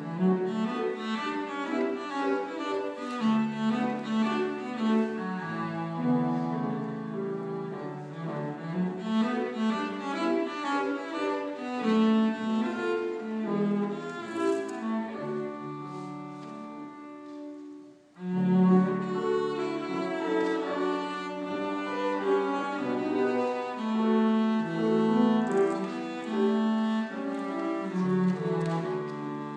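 Cello played with the bow, with piano accompaniment. A little past the middle the music breaks off for a moment, then comes back in loudly.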